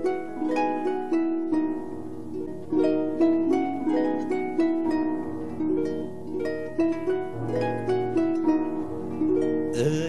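Concert pedal harp music: a flowing run of plucked, ringing notes, with low notes sustained beneath parts of it.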